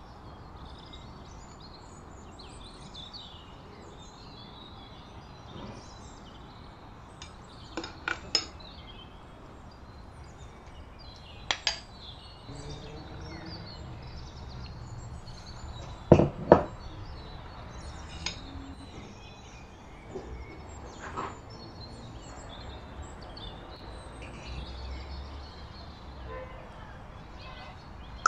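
Spatula and utensils knocking and clinking against a glass mixing bowl while batter is mixed, a scattered series of sharp clinks, some in pairs, the loudest pair about two-thirds of the way through, over a faint background hiss.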